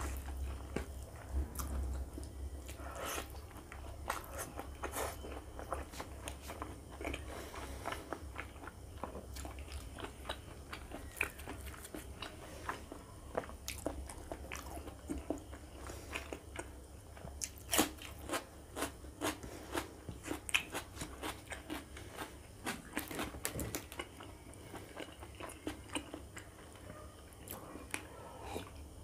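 Close-miked chewing and biting of rice and fatty pork curry eaten by hand: wet mouth sounds with many sharp clicks and crunches, thickest in the second half.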